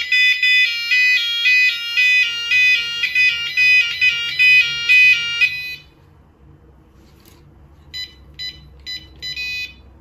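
Vintage Abacus alarm panel sounding a warbling alarm tone that steps rapidly between pitches, then cuts off about six seconds in. Near the end come a few short keypad beeps as keys are pressed.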